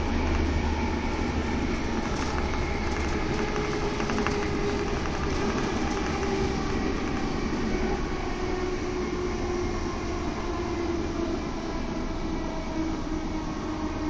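Electric passenger train running at speed, heard from inside the carriage: a steady rumble of wheels on the rails with a faint hum.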